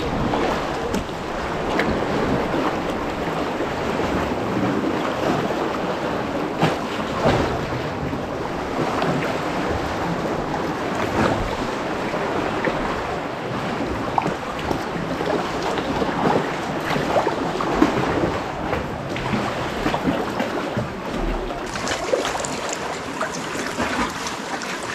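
Sea water sloshing and splashing around a sea kayak as it is paddled, with many short splashes from the strokes and the chop.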